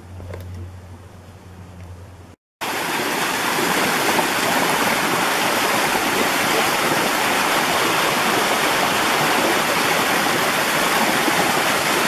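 A small mountain creek cascading down over rocks, a loud, steady rush of water that starts abruptly about two and a half seconds in. Before it there is a short quieter stretch with a faint low hum.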